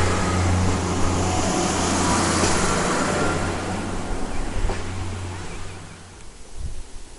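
Diesel multiple unit pulling out of the station: a steady engine drone with a low hum and wheel noise, fading as the train draws away and dying out about six seconds in.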